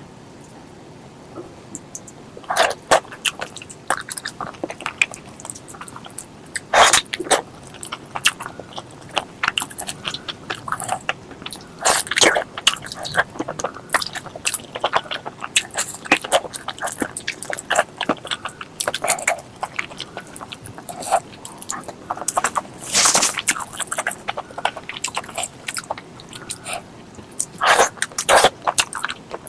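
Close-miked mukbang eating of spicy pork leg curry with rice: wet chewing with frequent sharp mouth smacks and clicks, a few much louder than the rest.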